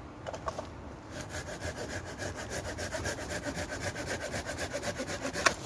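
Hand saw cutting through a branch in a fast, even rasping rhythm that starts about a second in. It ends with a sharp crack near the end.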